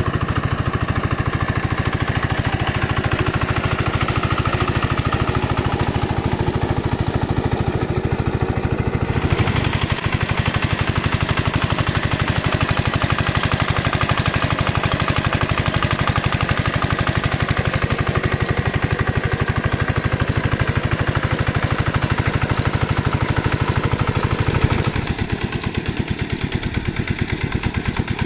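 Single-cylinder diesel engine of a two-wheel hand tractor chugging steadily under load as it works through flooded paddy mud. The sound changes abruptly about a third of the way in and again near the end, where it drops a little in level.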